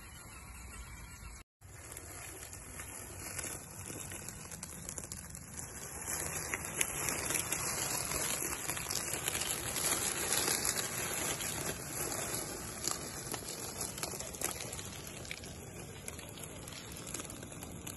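Dry leaf litter and twigs rustling and crackling under the tyres of an SCX10 scale RC crawler, loudest for a few seconds in the middle.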